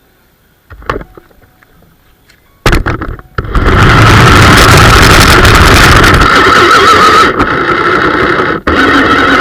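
Small RC model car's electric drive motor and gears whining loudly at a steady high pitch as it drives, starting about two and a half seconds in, easing slightly near the end with one short break.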